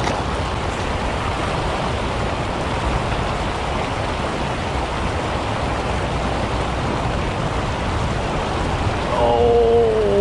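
Steady rush of flowing creek water. Near the end a man's voice cuts in briefly.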